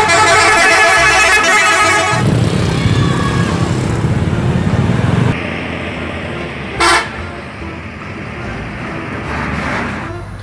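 Tour bus air horn sounding several notes together for about two seconds, then the bus engine running as it moves. A short hiss of air comes about seven seconds in.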